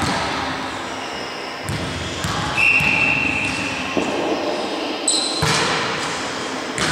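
A referee's whistle gives one steady blast about a second long, then a volleyball is struck several times, sharp hits about a second apart.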